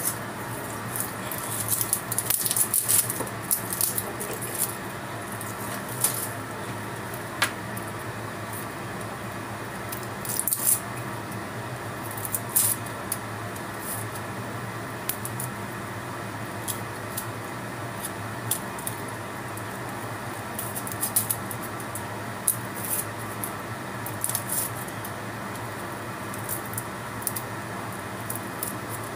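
Garlic cloves being peeled with a small kitchen knife: scattered light scrapes and crackles of the papery skin coming off, in short clusters, over a steady background hum.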